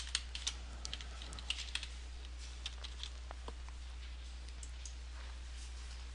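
Computer keyboard being typed on: quick, irregular key clicks, thickest in the first couple of seconds and then thinning to a few scattered strokes. A steady low hum runs underneath.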